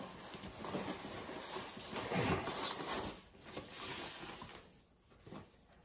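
Plastic bag rustling and crinkling as a wrapped part is pulled out of a box's styrofoam packaging. The rustling comes in uneven waves and stops about a second before the end.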